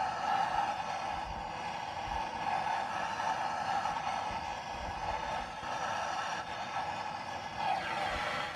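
Steady whir of a small motor-driven blower warming the cold diesel before a start attempt, cutting off abruptly at the very end.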